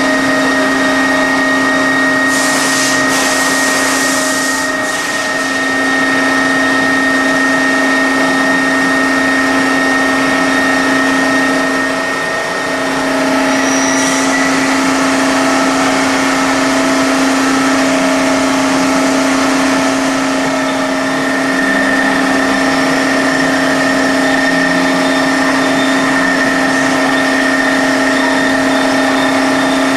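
Drilling machine running steadily with a constant hum, with a short burst of hiss about two and a half seconds in and brief dips in load twice.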